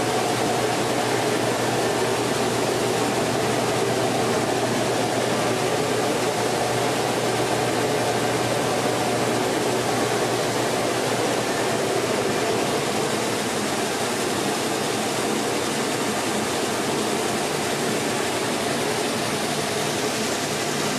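Small rice-mill husking machine (paddy huller) running with a steady, even noise and a low hum, husked grain streaming from its spout into a bucket.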